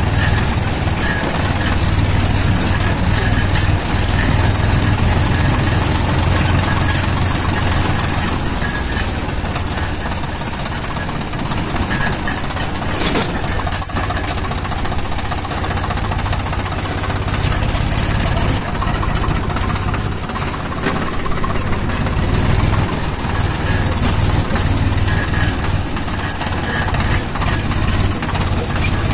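Tractor engine running steadily with a low drone as the tractor drives along a dirt track.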